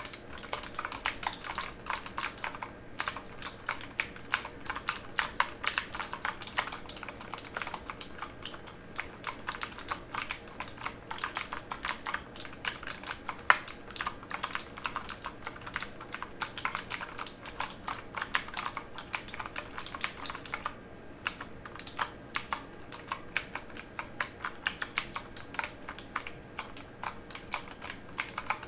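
Mechanical computer keyboard being typed on continuously, a dense run of sharp key clicks and clacks at an uneven typing rhythm. There are brief lulls about three seconds in and again near 21 seconds.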